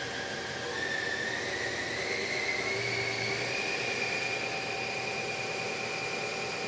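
Nakamura-Tome SC-300 CNC lathe spindle running with no load, a steady motor whine that rises in pitch over the first few seconds and then holds as the spindle speeds up from 1,000 to 1,500 rpm.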